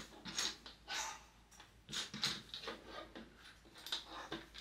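Plastic Lego bricks clicking and rattling as they are picked out of a loose pile and pressed together by hand, an irregular run of short clicks.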